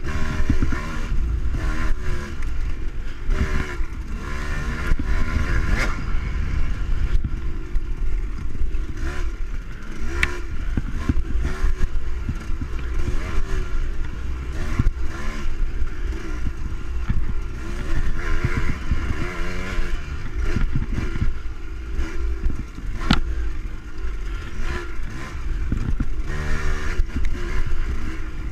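Dirt bike engine revving up and down again and again as the bike is ridden hard along a tight trail, with a few sharp knocks and clatter along the way.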